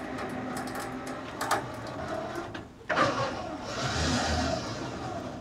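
A winch is hauling a heavy walnut log up onto a trailer, with the cable under load and a machine running steadily. A few knocks come about a second and a half in, then a louder rush of noise about three seconds in as the log drags.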